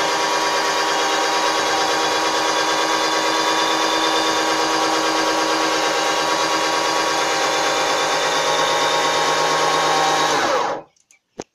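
12-volt cordless drill motor turning a threaded steel rod to raise an automatic chicken coop door: a steady whine that cuts off suddenly near the end when the door is up, followed by a single click.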